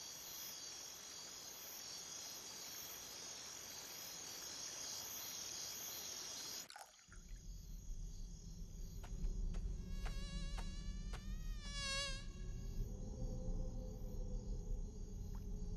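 Night-time ambience of steady insect chirring. It cuts off about seven seconds in to a low hum, with a few clicks and then a short warbling tone.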